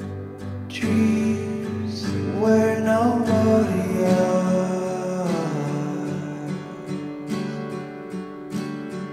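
Background music with acoustic guitar, a sliding melody line in the middle.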